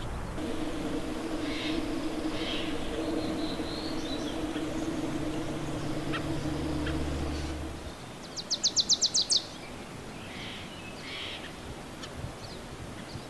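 Gray jay calling close by: a quick, even run of about nine sharp high notes lasting about a second past the middle, with a few softer calls before and after. A steady low hum runs under the first half and stops about eight seconds in.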